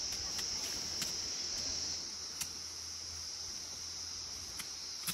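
A steady, high-pitched drone of insects, with a few faint scattered clicks.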